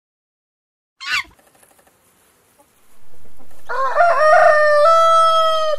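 Rooster crowing: one long cock-a-doodle-doo that starts a little past halfway, steps up in pitch, then holds. About a second in there is a brief, high, falling squawk.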